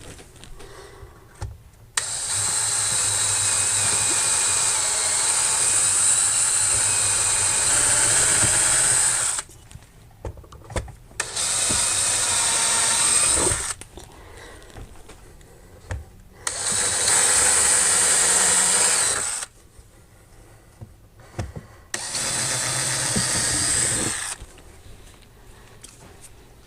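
Power drill boring pilot holes into wood, run four times: one long steady run of about seven seconds, then three shorter runs of two to three seconds each, with quiet pauses between.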